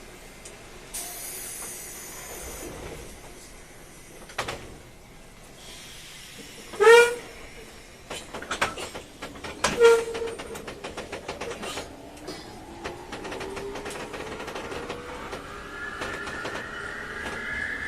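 Inside a 201-series electric train car, a short loud tone sounds about seven seconds in, a briefer one near ten seconds, with clicks and clunks between them. From about twelve seconds in, a whine rises steadily in pitch as the train pulls away under power. The whine comes from the chopper-controlled traction motors, making the unusual jet-like sound the recordist noticed when powering.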